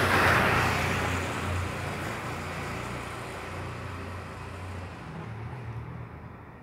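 A road vehicle passing by: its rush of engine and tyre noise is loudest at the very start, then fades steadily away.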